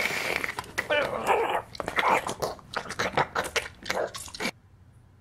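Gory sound effects of a body being crushed through prison bars: a rapid, irregular run of wet crunches and cracks mixed with short strangled cries, stopping abruptly about four and a half seconds in.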